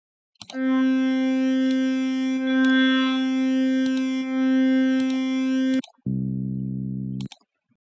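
FL Studio's Sakura synthesizer playing a preset: one long held note of about five seconds, then a shorter, lower, buzzier note near the end.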